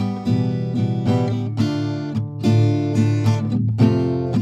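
Instrumental background music led by an acoustic guitar strumming and picking chords.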